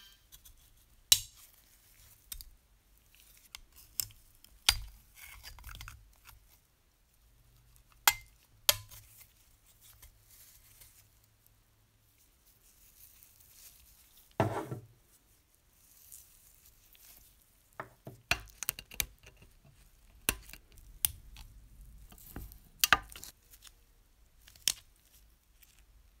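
Small hand tools and metal parts worked on a rusty sheet-metal Märklin model locomotive frame: scattered sharp clicks and taps, with a short scraping rub about fourteen seconds in.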